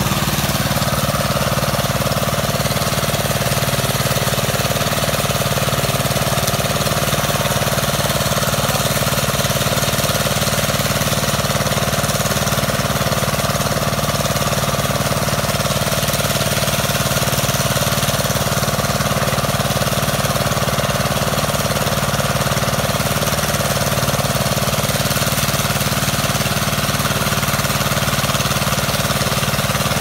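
A small engine running steadily at a constant speed, without a break, at the spot where rice grain is being winnowed.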